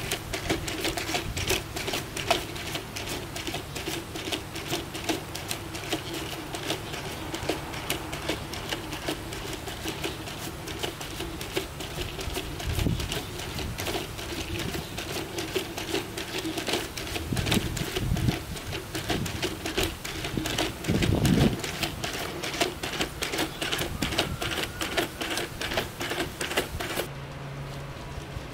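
Small brushless-motor quadruped robot (mjbots quad A1) walking: rapid, irregular clicking and tapping from its feet and legs over a steady hum from its motors, with a few dull low thumps. The sound stops abruptly near the end.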